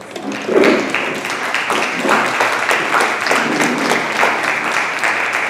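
Audience applauding, many hands clapping steadily, starting about half a second in.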